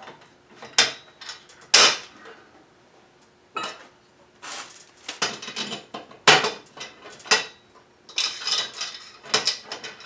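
Irregular metal clinks and knocks, about ten, from loose steel nuts and bolts and the aluminium rails and brackets of an Alaskan chainsaw mill being handled and fitted together by hand on a wooden workbench.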